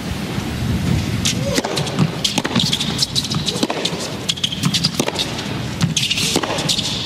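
Tennis ball bounced on an indoor hard court before a serve, then sharp racket strikes as the point is played, with short sneaker squeaks. A steady arena hum runs underneath.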